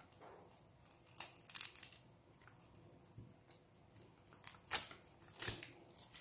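Fabric wrist strap being pulled through its metal ring and pressed closed, giving a few brief rasping scrapes and rustles, one cluster about a second and a half in and more near the end.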